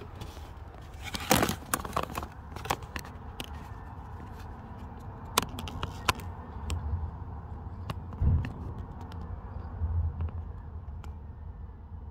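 Hands working at the intake side of a Skoda Superb 2.0 TDI's turbocharger, opening it up to look inside: scattered clicks and scrapes, with a low thud about eight seconds in, over a steady low hum.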